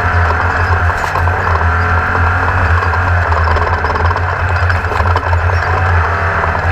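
A vehicle engine running at a steady speed, with a constant low drone under a dense rushing noise.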